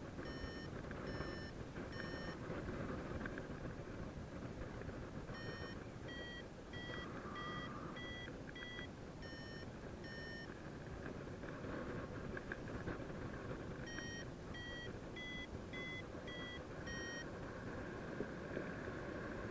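Paragliding variometer beeping its climb tone: three runs of short electronic beeps whose pitch rises and falls with the strength of the lift. Wind rushes steadily past the microphone underneath.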